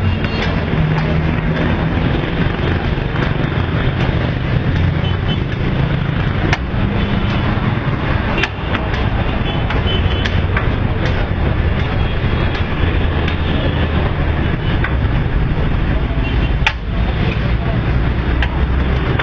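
A metal spatula scraping and clinking against a large wok as a big batch of nasi goreng (fried rice) is stirred, with a few sharp clinks. Underneath is a loud, steady noise with a low hum.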